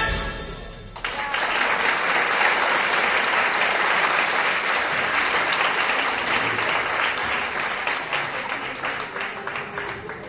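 A song's last notes die away, then an audience applauds from about a second in. The clapping is steady and thins out near the end.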